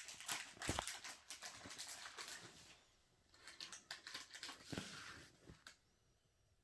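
Plastic parts of a water fountain kit being handled and fitted together: a run of small clicks and rustling with a couple of sharper knocks, stopping shortly before the end.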